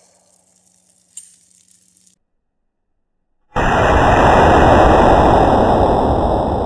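The tail of a gunshot echo fades out, then after a brief dead silence a loud, steady rushing noise starts suddenly: wind buffeting the microphone.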